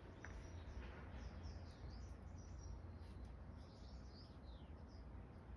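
Small birds chirping repeatedly, short high chirps and quick falling notes, over a steady low outdoor rumble.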